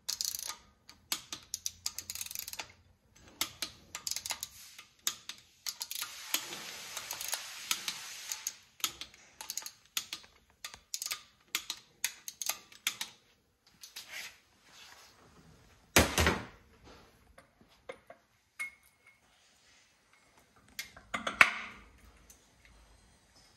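Hand wrench clicking on bolts being run down and torqued to 16 on an engine's front pulley drive: scattered clicks, then a fast run of ratcheting. Two loud metal clunks, about two-thirds of the way in and near the end, as tools and parts are handled.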